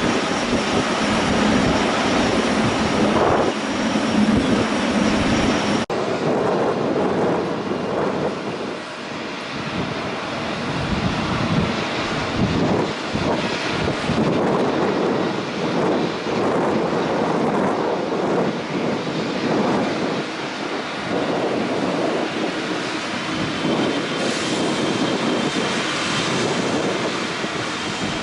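Boeing 777 jet engines at takeoff power, a steady rushing roar. About six seconds in it drops out for an instant, then carries on with less low rumble.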